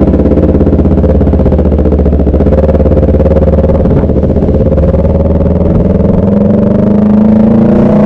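Motorcycle engine running loud and distorted on the onboard camera's microphone, its pitch climbing steadily over the last couple of seconds as it accelerates.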